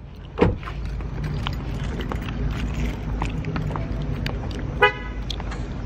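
A loud thump about half a second in, then a car horn gives one short chirp near the end, the lock signal from the key fob, over steady low outdoor noise.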